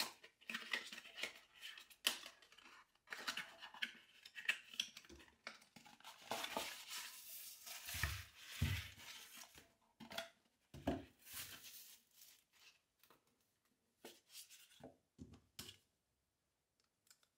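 Cardboard box packaging being opened and handled: irregular rustling and scraping as the selfie stick is slid out of its box, with two dull thumps about eight seconds in, then sparser handling sounds.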